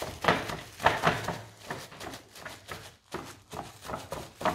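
Plastic cling film crinkling and rustling as it is pressed and kneaded into wet acrylic paint on a canvas, in irregular crackles and rubs.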